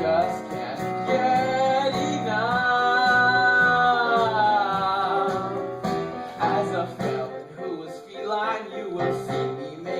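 A show tune being sung over instrumental accompaniment. About two seconds in, the voice holds one long note that rises and falls gently for about three seconds, then goes on in shorter sung phrases.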